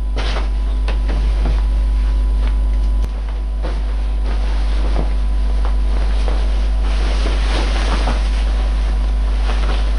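Cloth rustling as a shirt is handled and pulled on, with irregular rustles that are busiest from about the middle to near the end. Under it runs a steady low rumble of microphone noise.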